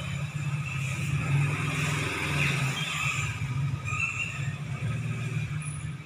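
Motor vehicle engine rumble from nearby road traffic, steady and low, swelling about two to three seconds in.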